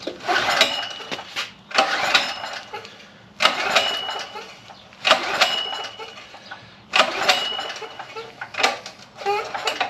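Predator 4000 portable generator being pull-started six times in a row: each pull of the recoil starter gives a sharp rasp with a short whine as the engine turns over, about every one and a half seconds. The engine does not fire at all, not even popping, so it fails to start.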